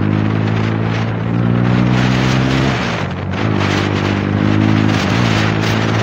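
TVS Raider 125's single-cylinder engine running through an aftermarket exhaust while the bike is ridden, a steady exhaust note that dips briefly about three seconds in and again near the end. A rush of wind noise lies under it.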